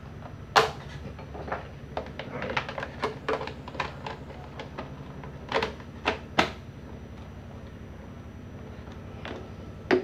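Irregular plastic clicks and knocks as the plastic cover of a pedestal fan's base is handled and pressed back into place, with wires tucked in using a screwdriver. The sharpest knock comes about half a second in, with more clusters of clicks a few seconds later.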